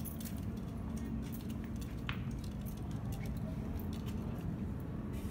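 Scattered light clicks and rustling from a phone being moved around a boom lift's steel arm, over a steady low rumble.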